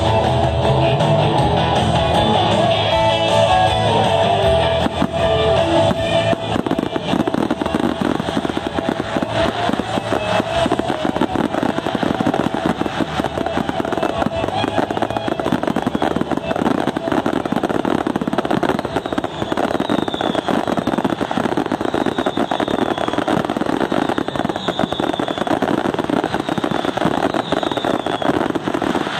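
Guitar music plays for the first few seconds, then a dense, continuous barrage of aerial fireworks takes over: rapid overlapping bangs and crackling shells with no break.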